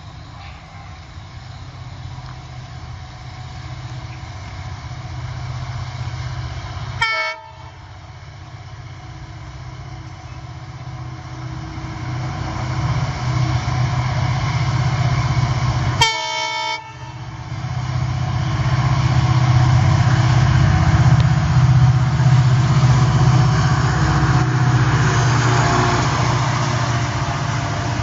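WDG-4 diesel-electric locomotive (EMD 16-cylinder two-stroke engine) hauling a container train, its engine rumble growing steadily louder as it approaches, then rail and wagon noise as it passes. Two very short horn toots about 7 and 16 seconds in.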